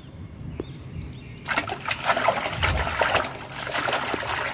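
Water sloshing and splashing in a plastic tub as a hand swishes a toy through it, picking up about a second and a half in.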